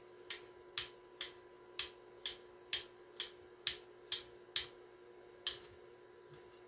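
The mic/echo switch on a Super Star T747 microphone test center being clicked back and forth over and over, about two sharp clicks a second, ending with one last click about five and a half seconds in. A faint steady hum runs underneath.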